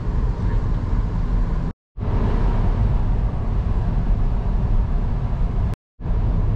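Steady rumbling road noise of a moving vehicle. It cuts out abruptly to silence twice, briefly, about two seconds in and again near the end.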